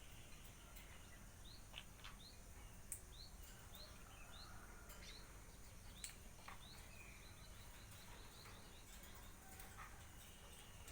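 Faint bird chirping: a run of short rising chirps, about two or three a second, over steady low background noise, with a few sharp clicks.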